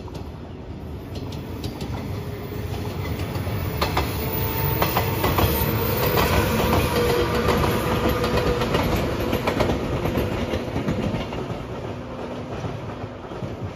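JR 115 series electric multiple unit passing, its wheels clacking over the rail joints. It grows louder as it approaches, is loudest around the middle, and fades as it moves away.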